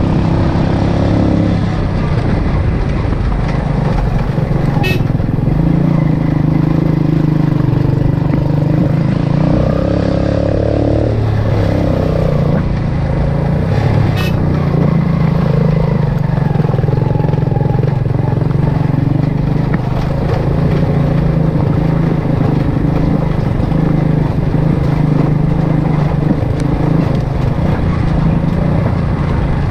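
Yamaha motorcycle engine running under load while climbing a dirt track, its note rising and falling as the throttle changes. Two brief sharp clicks stand out, about five seconds in and again around fourteen seconds.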